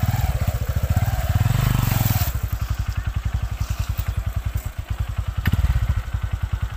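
Small motorcycle engine running at low, steady revs with a rapid, even thudding beat. A single sharp click comes about five seconds in.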